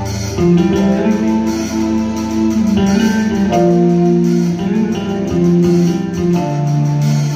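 Live rock band playing an instrumental passage: acoustic and electric guitars over a drum kit and keyboard, with held chords that change about every second.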